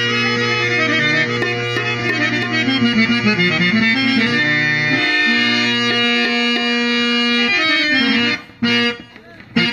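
Harmonium playing a melodic prelude, the melody moving over low held drone notes. The playing breaks off for about a second near the end, then starts again.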